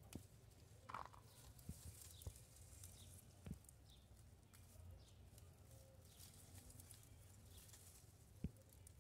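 Near silence, broken by a few faint clicks and light rustles as hands handle the leaves and stems of a pepper plant while picking the peppers.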